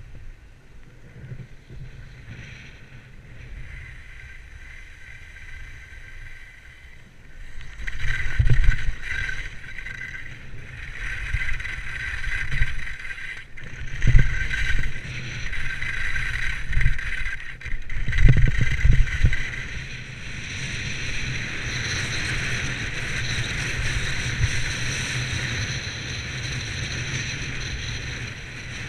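Skis sliding and scraping over snow on a downhill run, with wind buffeting the microphone. The scraping gets louder about a quarter of the way in, with several heavy low thumps through the middle.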